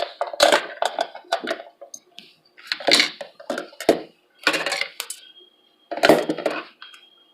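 Hard plastic spiralizer parts clacking and rattling as they are handled, in about five separate bursts of clicks.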